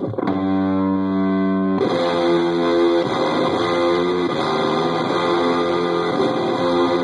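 Electric guitar played through a breadboarded Dropout Fuzz pedal prototype into an amp's high-gain channel, heavily distorted. A chord is struck about a quarter second in and held, then a new, brighter chord is played from about two seconds on and keeps ringing.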